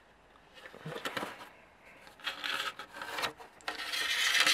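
Rubbing and scraping as hands handle a hard plastic part, in irregular bursts that grow louder after about two seconds.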